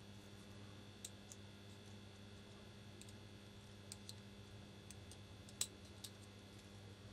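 Faint, scattered clicks of small metal parts as the pivot washer is nudged into place on a Benchmade Mini Griptilian's blade during reassembly, over a steady low hum; the clearest click comes a little over halfway through.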